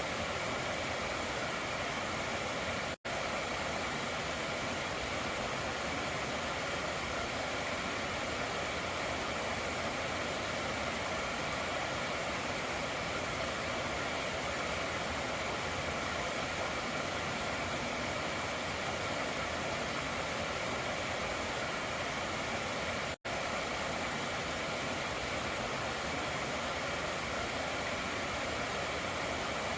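Stream water running steadily over rocks, a continuous rushing. The sound cuts out to silence for an instant twice, about three seconds in and again near the end.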